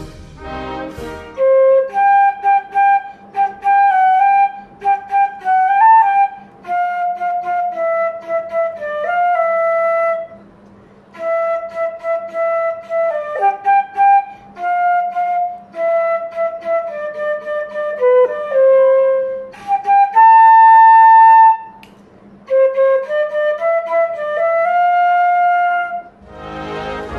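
Solo concert flute playing a national anthem melody note by note, with short breaks between phrases and one long held high note about two-thirds of the way through.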